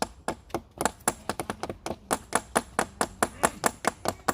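A stone knocking rapidly and steadily, about five sharp taps a second, hammering something into a tree trunk. Each tap has a thin high ring.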